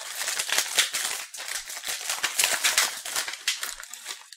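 Plastic snack wrapper crinkling and crackling in the hands as it is opened, a dense run of quick sharp crackles.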